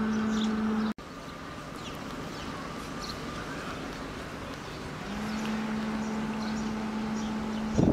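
Steady low electric hum from an electric locomotive hauling passenger coaches slowly through the station, with birds chirping throughout. The hum drops out about a second in and returns about five seconds in. A brief louder sound comes just before the end.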